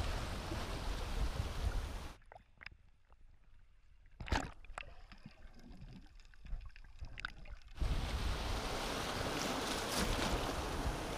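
Sea waves washing over shoreline rocks, cut off abruptly about two seconds in by muffled underwater sound with scattered clicks and bubbling, then surf washing again from about eight seconds in.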